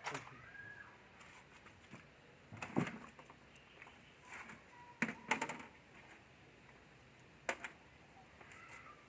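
A few sharp clicks and knocks, spaced out with quiet gaps between them, the loudest a pair of knocks about five seconds in.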